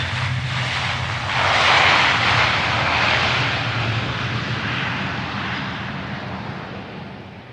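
Jet noise from a Boeing 737-800's CFM56 turbofan engines as the airliner lands. It swells about a second and a half in, then fades away steadily.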